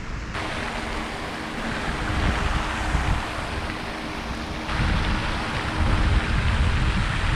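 Wind buffeting the microphone, an uneven low rumble over a steady outdoor noise, with a faint hum beneath it.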